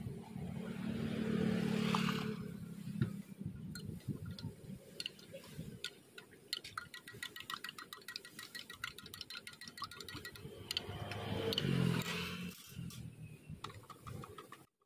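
Quick run of light clinking taps, many a second, for about four seconds in the middle, between two slow swelling rumbles near the start and near the end. The sound cuts off abruptly at the end.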